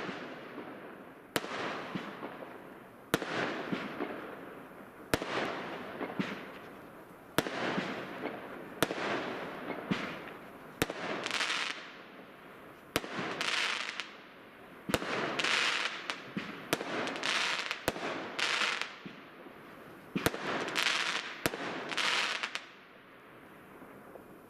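Fireworks: a string of sharp bangs about every one to two seconds, each followed by a second or so of crackling hiss.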